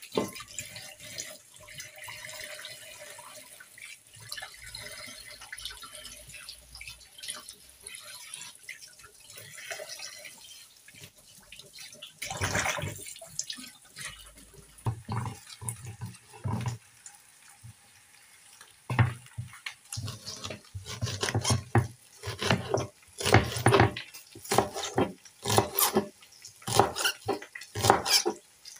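Kitchen tap running as spring onions and tomatoes are rinsed under it at the sink. Then, from a little past the middle, a knife chops spring onions on a wooden cutting board in a steady run of strokes, about two a second.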